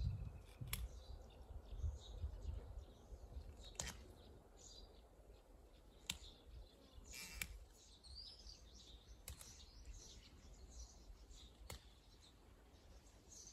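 Garlic scapes snapping as they are broken off by hand: a handful of short, sharp snaps spread a few seconds apart. Birds chirp faintly behind them.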